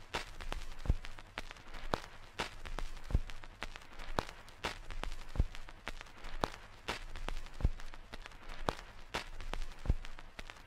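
Footsteps, sharp steps at about two a second, over a faint steady haze.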